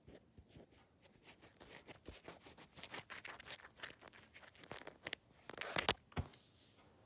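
Close-up handling noise: fingers and a gecko brushing and bumping against the phone, giving an irregular run of crackling rustles and sharp clicks. It thickens about three seconds in and is loudest just before the end.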